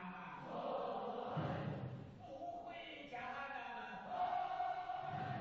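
Recording of a Chinese haozi, a boatmen's work song, with a group of voices chanting and singing together, played back over the hall's loudspeakers.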